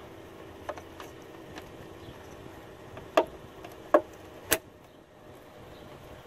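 Plastic wiring connector and its rubber boot being pushed into the car's door-jamb opening: a few light ticks, then three sharp clicks over the second half as the connector clips seat.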